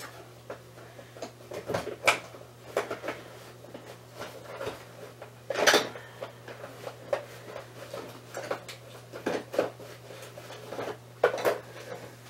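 Irregular clicks, knocks and light rattles of household things being handled and rummaged through, as someone looks for a baby hairbrush. There is a louder knock about halfway through and another near the end, over a faint steady hum.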